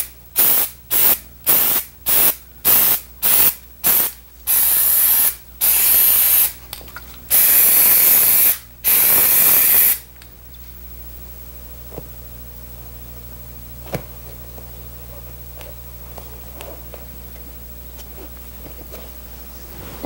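An aerosol can of 3M 8090 spray adhesive hissing, first in about nine quick short bursts, roughly two a second, then in four longer sprays of a second or so each. It stops about ten seconds in, leaving faint room tone with a few light ticks.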